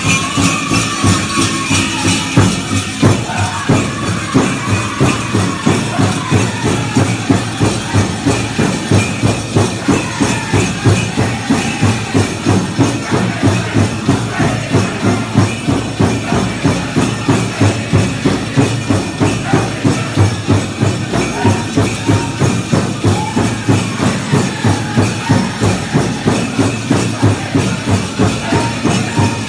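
Powwow drum group singing a fast Chicken dance song over a hard, steady drum beat, with high voices leading near the start. Dancers' bells jingle along with the beat.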